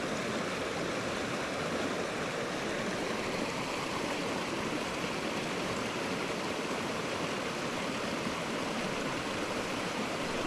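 Small rocky brook pouring over a low cascade and riffle into a pool: a steady, even rush of water.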